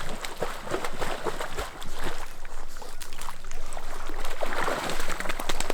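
Lake water splashing and sloshing, with many small irregular splashes, as a person and a dog wade in the shallows.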